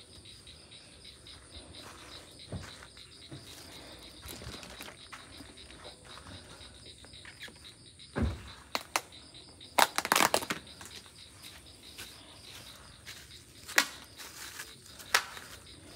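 Insects chirring steadily at dusk, with scattered sharp knocks and a brief rapid clatter about ten seconds in.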